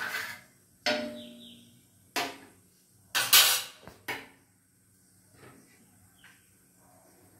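A few sharp knocks of a utensil against a metal kadai of simmering kheer, each followed by a short metallic ring. The loudest comes about three seconds in, then it goes quiet apart from faint handling.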